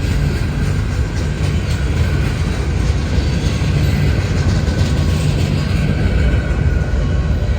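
Freight train cars rolling past close by, a loud steady rumble of wheels on rail.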